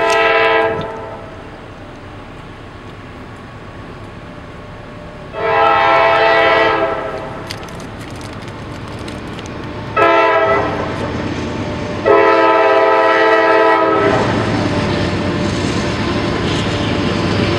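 Norfolk Southern diesel locomotive air horn sounding the grade-crossing signal: a blast fading just after the start, then a long, a short and a long blast, each a chord of several tones. After the last blast the lead locomotives of an eight-unit consist pass the crossing, their engines and wheels making a steady loud noise.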